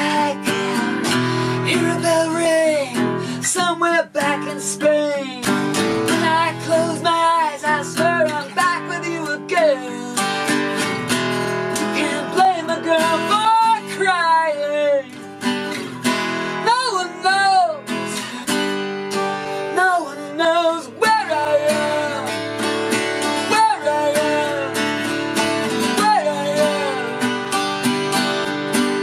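Two acoustic guitars playing a song together, with a woman singing over them in a wavering, vibrato-laden voice.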